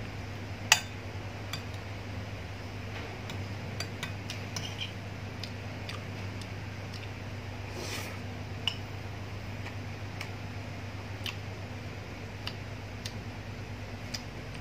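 A metal spoon clinking and scraping on a ceramic plate of rice: one sharp clink about a second in, then lighter scattered clicks. A steady low hum runs underneath.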